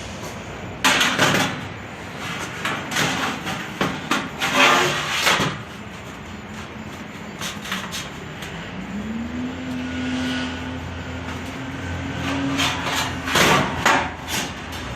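Thin galvanized sheet-metal duct pieces clanking and rattling as they are handled and worked, with sharp metallic hits about a second in, around the middle of the first half, and near the end. In between, a small power tool's motor spins up and runs steadily for about four seconds.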